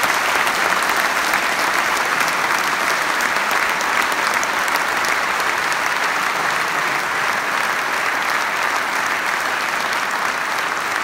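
Large theatre audience applauding: dense, steady hand-clapping with no break.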